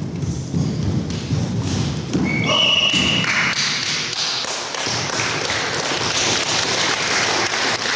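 Thuds and taps of a full-contact kempo bout, strikes landing and bare feet on the gym floor, amid a steady din in the hall. A short high tone rises in a step about two and a half seconds in.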